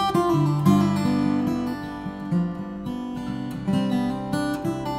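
Background music: acoustic guitar plucked and strummed, with notes that ring and fade.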